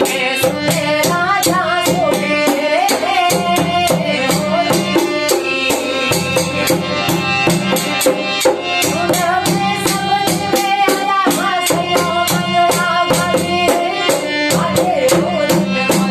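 Desi bhajan music: dholak and a jingling rattle-type percussion keep a steady beat of about three strokes a second under a bending melody line.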